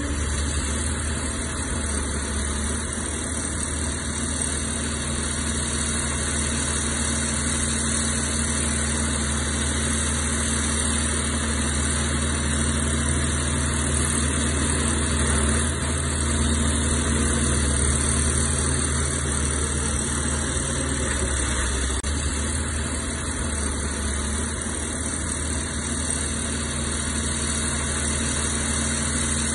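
Heavy diesel engine of earthmoving machinery running steadily at a constant speed.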